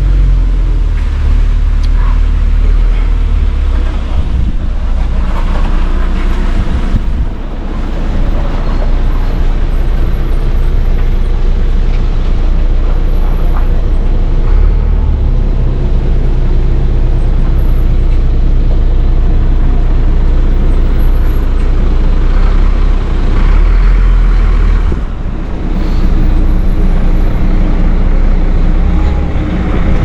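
Strong wind buffeting the microphone in gusts, a loud low rumble that eases briefly twice.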